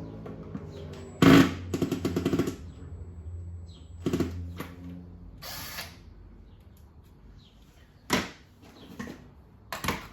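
Tool work on the plastic body of a Numatic WV380-2 vacuum while its handle is being undone: a sharp knock, then a rapid rattling clatter for about a second, followed by a few scattered knocks.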